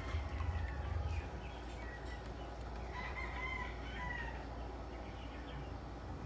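A rooster crowing once, a drawn-out call that rises and falls about three seconds in, over a steady low rumble.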